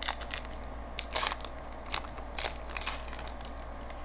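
Crinkling and crackling of a trading card pack wrapper being handled and torn open, in several short bursts over about three seconds, loudest a little past one second in.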